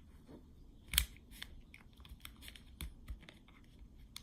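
Quiet, scattered small clicks and scrapes of a child digging into Play-Doh to free a buried toy, with one sharper click about a second in.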